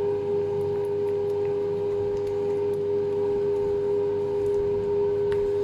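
A steady machine hum made of a few held tones, with faint scrapes of a silicone spatula stirring ganache in a stainless steel bowl.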